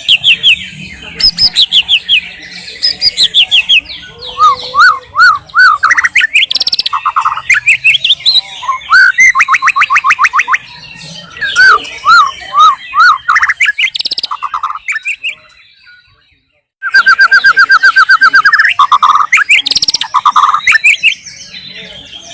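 White-rumped shama singing loudly: a varied run of rich whistles, quick rising notes repeated in series, and fast trills. The song drops out briefly about two-thirds of the way through, then resumes with a rapid trill.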